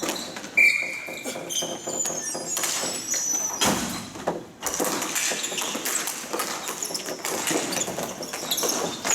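Ball hockey play in a large hall: many short, high-pitched squeaks of shoes on the court floor, mixed with sharp knocks of sticks and ball.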